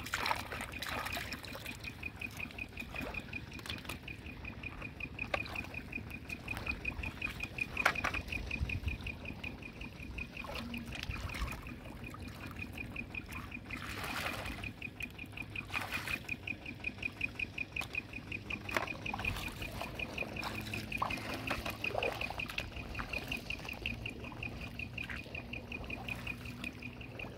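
Hands splashing and sloshing in shallow muddy water, with irregular splashes, the strongest about 8, 14 and 16 seconds in. Beneath it runs a steady, high, fast-pulsing trill.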